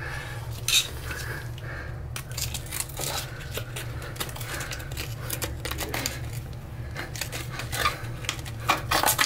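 Flat-blade screwdriver scraping and digging old wax and debris out of the bolt slot of a rusty metal toilet flange: one sharp click early, then from about two seconds in a fast, uneven run of scrapes and clicks. This is the slot being cleared so a T-bolt will slide in. A steady low hum runs underneath.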